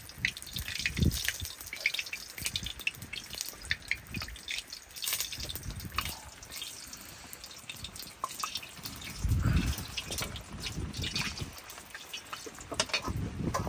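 Water dripping in quick, irregular drops, with a few dull low thumps, the loudest about nine seconds in.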